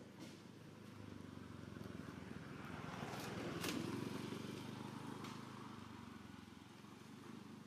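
A motor vehicle going past: a steady engine sound that grows louder to a peak a little before halfway, then fades away. Two sharp clicks come near the loudest point.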